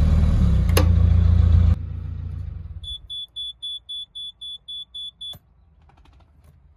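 Narrowboat's Beta Marine diesel engine running, then shut off about two seconds in and dying away. The engine panel's alarm then beeps rapidly, about four times a second, for a couple of seconds, and stops with a click as the ignition key is turned off.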